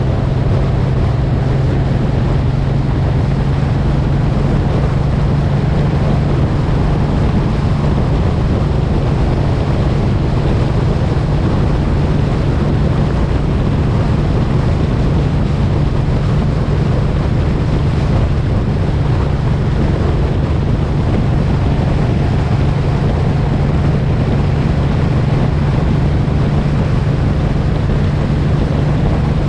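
Suzuki M109R's V-twin engine running at a steady highway cruise, its pitch holding even, with wind rushing over the microphone.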